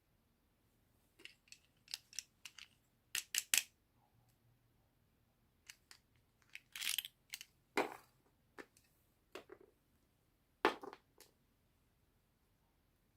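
Doll-set packaging being handled and opened: scattered short clicks and snaps with brief rustling crinkles, the loudest clusters a few seconds in, in the middle and about three-quarters through.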